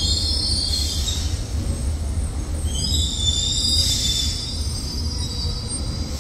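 Berlin U-Bahn small-profile HK06 train's wheels squealing on the curving track as it runs into the station. There is a high squeal at the start, ending about a second in, and a second spell from about three to four and a half seconds, over a steady low rumble of the train.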